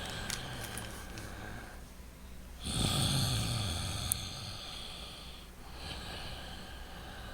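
A person breathing loudly and slowly in and out through the nose in deliberate tai chi breaths. Three long breaths with short pauses between them; the middle one, starting about three seconds in, is the loudest and has a low rough edge.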